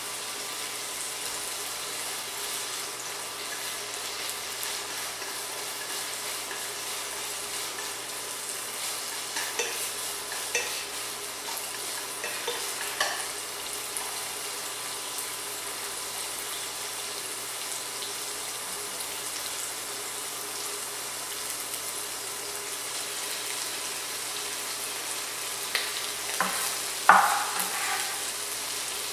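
Diced dried tofu sizzling steadily in hot oil in a nonstick pot as it is stir-fried with chopsticks. Scattered clicks and knocks come through, with a louder clatter near the end.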